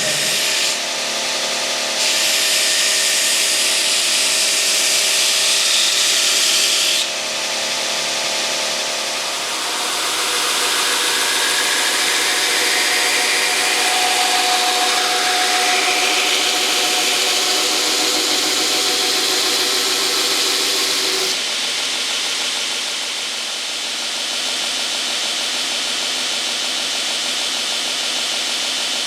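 A power grinder grinding a steel knife blank, a steady rasping whine that changes abruptly a few times.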